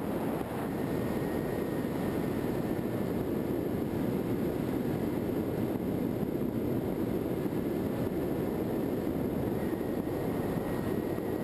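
Steady wind rush and propeller noise of a Skywalker FPV model plane in flight, heard from its onboard camera, with a faint high motor whine about a second in and again near the end.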